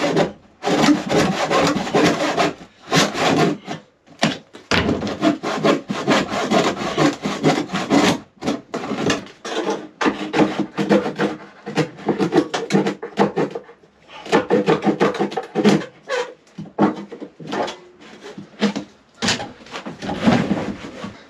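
Hand saw cutting through a timber shed floorboard in runs of quick back-and-forth strokes, with short pauses between runs. The board is rotten and is being cut back to the beam.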